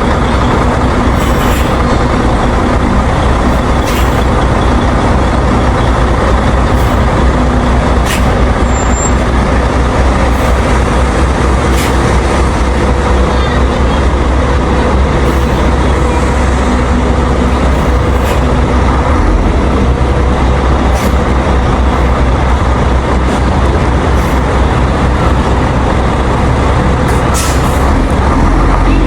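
Chevrolet LV150 bus engine running with a steady low rumble, with a few short clicks every few seconds.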